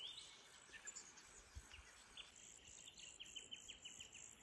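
Faint forest ambience: a steady high insect hum with scattered small bird chirps, including a quick rapid run of chirps about three seconds in.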